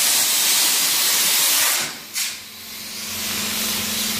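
Aerosol spray can spraying paint: a loud steady hiss for nearly two seconds that stops, a brief short squirt, then a quieter hiss with a steady low hum underneath.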